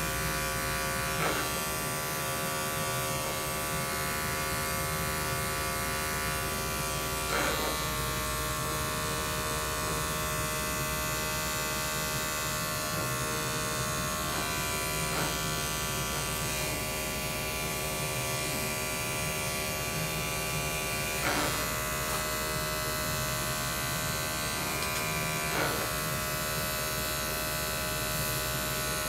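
Electric dog clippers running with a steady buzz while clipping the coat short, with a few brief louder moments as the blade works over the body.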